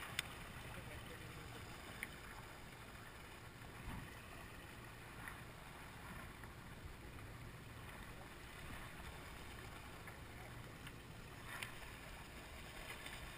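Quiet open-water ambience on a small boat: water sloshing and a low steady hum, broken by a few short light knocks.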